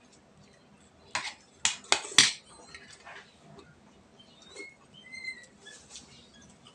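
Spoon and fork clinking on ceramic plates while eating: a quick run of four sharp clinks between one and two seconds in, then softer, scattered clatter.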